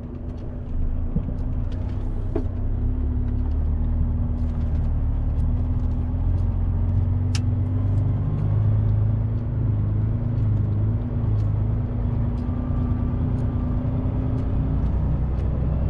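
Heavy truck's engine running steadily while driving, a continuous low drone heard from the cab, with scattered small clicks and rattles.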